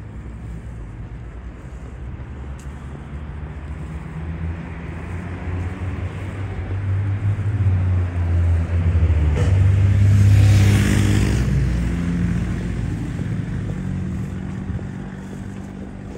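A car driving past on the street alongside, its low engine hum and tyre noise growing steadily louder, loudest about ten seconds in, then fading away.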